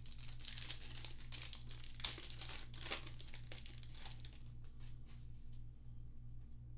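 Plastic foil wrapper of a Panini Mosaic basketball card pack crinkling and tearing as it is ripped open, with sharper tears about two and three seconds in, dying away after about five seconds.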